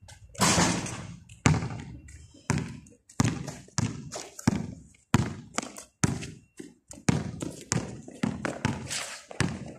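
Basketball dribbled on a concrete court: a run of bounces, roughly one every half-second to second, some sharper and louder than others.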